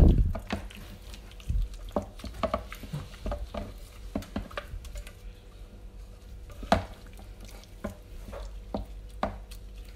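Gloved hands mixing chunks of lamb in a thick yogurt-and-spice marinade in a stainless steel bowl, making irregular short squishing and tapping sounds. The loudest comes right at the start.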